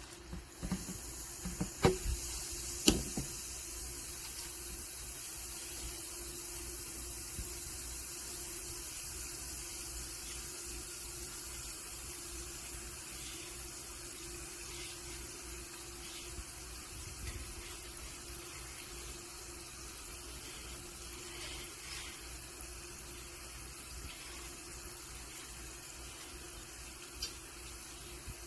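Baking soda solution fizzing steadily as citric acid reacts with it and releases carbon dioxide bubbles, a continuous soda-like hiss. A few sharp clicks in the first three seconds.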